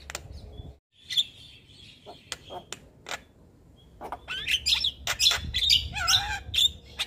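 Javan myna (white-vented myna) singing: sharp clicks and chirps, a brief gap, then from about four seconds in a dense run of squeaky whistles and chirps with one lower wavering warble.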